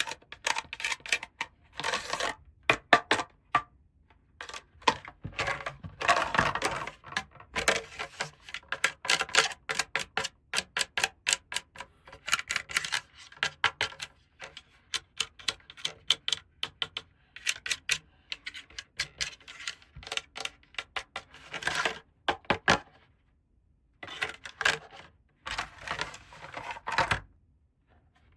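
Small plastic toy pieces being handled, clicking and tapping against each other and a hard surface in quick irregular runs, with a few longer stretches of crinkling or rustling packaging.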